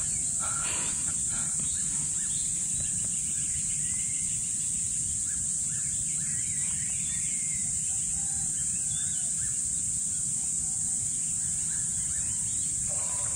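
Outdoor ambience dominated by a steady, high-pitched insect chorus, with scattered faint bird chirps and a low rumble underneath.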